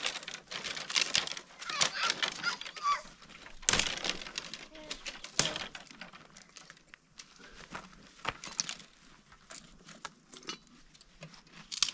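Dry, dead branches cracking and snapping as they are broken off a shrub by hand, with twigs rustling and scraping against each other. Two louder snaps come in the first half, then the sounds thin out to occasional cracks of sticks being handled, with one sharp snap near the end.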